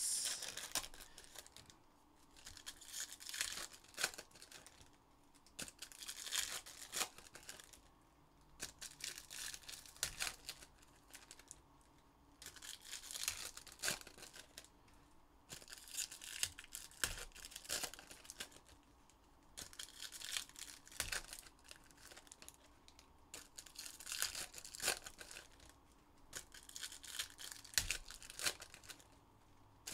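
Foil card-pack wrappers being torn open and crinkled by hand. It comes in repeated spells of a second or two, about every three to four seconds, with a few soft knocks between them.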